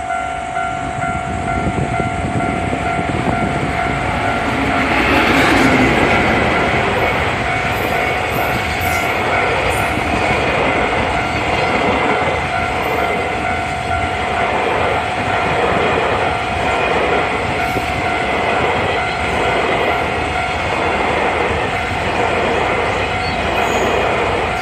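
Freight train hauled by an EF210 electric locomotive passing close by at a level crossing, loudest about five seconds in, then its wagons' wheels clacking rhythmically over the rail joints. The crossing's warning bell rings steadily over it.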